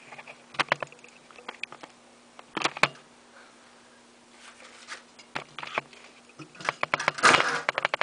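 Irregular clicks and crackles of a clear plastic sheet flexing as a rubber toy frog is pressed flat beneath it, sparse at first and thickening into a dense crackle about seven seconds in.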